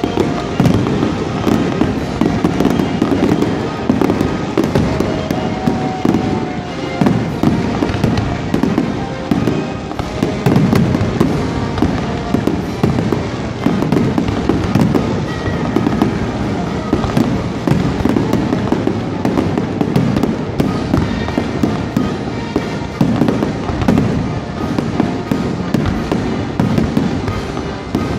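Aerial fireworks display, shells bursting in rapid, continuous succession: overlapping booms and sharp cracks with no break.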